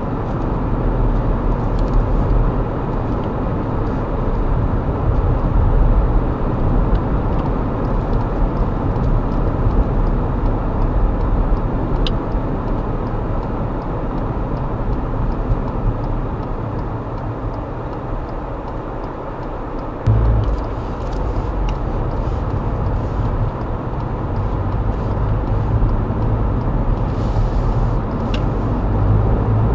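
Car driving, heard from inside the cabin through a dashcam's built-in microphone: steady road and engine rumble, with a sudden rise in the low rumble about twenty seconds in.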